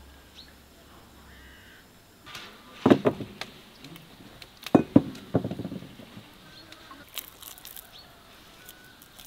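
Enamel bowls and a spoon knocking and clinking on a wooden table: a couple of sharp knocks about three seconds in and another cluster around five seconds, each with a short ring.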